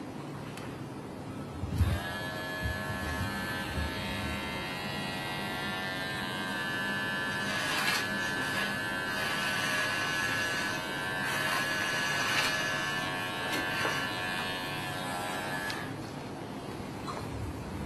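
Cordless electric hair clipper buzzing steadily as it cuts through long hair held against a comb. It starts with a knock about two seconds in and stops about two seconds before the end.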